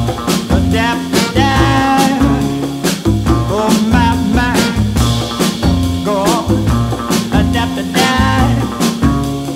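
Rhythm-and-blues soul band playing a song, with a steady drum beat and a bass line.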